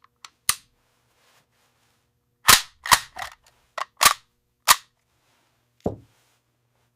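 A series of short, sharp cracks at irregular intervals: two faint clicks at the start, then a cluster of about six loud ones between two and a half and five seconds in, and a last one near six seconds.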